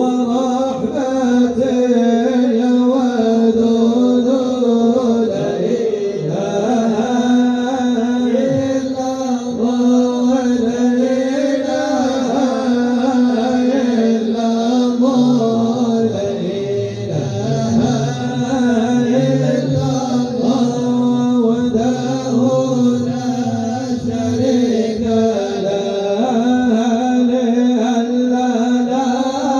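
Arabic devotional song (madih) with a melodic vocal line wavering over a steady held drone.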